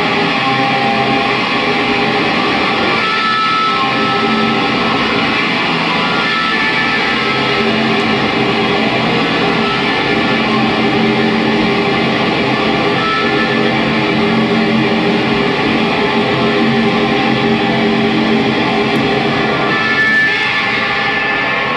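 Electric guitar played through a chain of effects pedals: a dense, sustained wash of layered, distorted tones that holds steady in level throughout.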